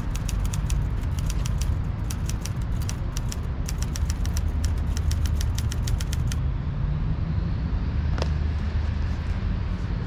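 Typewriter key clicks, about seven a second, stopping about six seconds in, as a sound effect for on-screen text typing itself out. A steady low rumble runs underneath.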